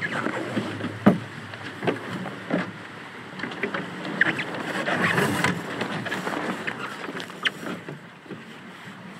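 Water rushing and splashing along the hulls of a sailing trimaran, swelling for a moment in the middle, with a sharp knock about a second in and a few lighter knocks.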